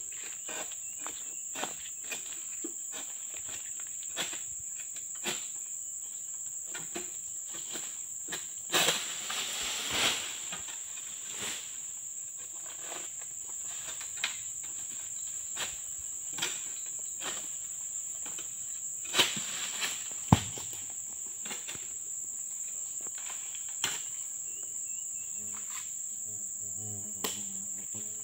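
Oil palm harvesting with a manual egrek, a sickle on a long pole: scattered clicks and scrapes as the blade cuts at the palm crown, with two louder rustling crashes about 9 and 19 seconds in, the second ending in a sharp thump, as cut fronds and a fruit bunch come down. Insects drone steadily and high-pitched throughout.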